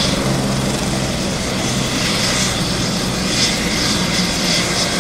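Helicopter's turbine engine and main rotor running steadily while the helicopter stands on the ground.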